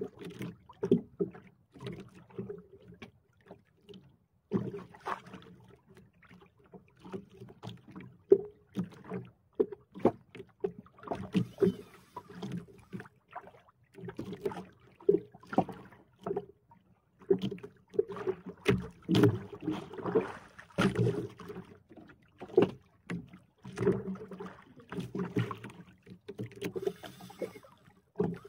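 Sea water slapping and knocking against the hull of a small outrigger boat in irregular bursts.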